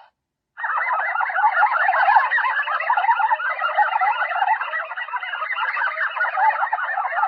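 Sound effect played through a toy's small speaker: a dense, continuous stream of fast warbling chirps, rising and falling in pitch, that starts after about half a second of silence.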